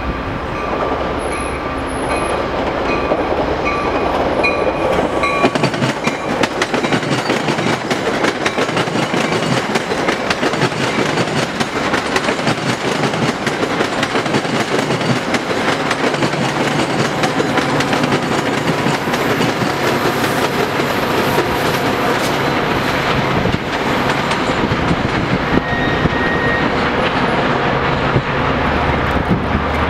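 Passenger train cars rolling past at close range, including a dome car and a Pullman car. Their wheels on the rails make a steady, loud rush of noise that builds about two seconds in.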